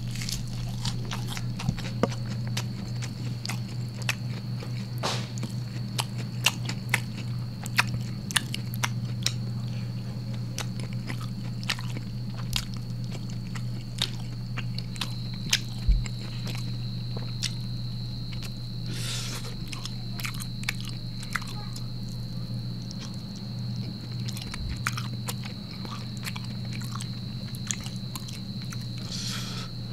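A person eating rice with beef rendang and squid by hand, close to the microphone: irregular wet chewing smacks and mouth clicks, the sharpest about 16 seconds in. A steady low hum and a faint high whine run underneath.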